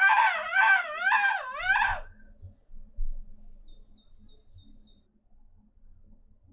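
A young woman's high-pitched warbling shriek, its pitch swooping up and down several times, cutting off about two seconds in. After that only faint low thuds and a short row of light ticks.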